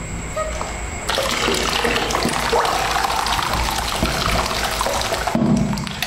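Water pouring from a jug into a plastic basin half full of water, a steady splashing rush that starts about a second in and stops about a second before the end.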